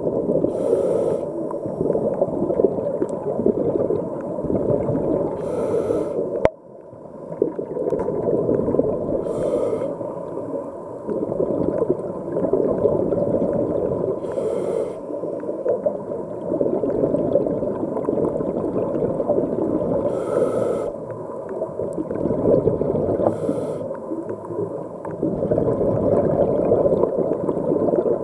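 Underwater recording of a diver breathing: a steady low rumble of water and bubbles against the camera, with six short hissing breaths spaced three to six seconds apart. A single sharp knock about six seconds in.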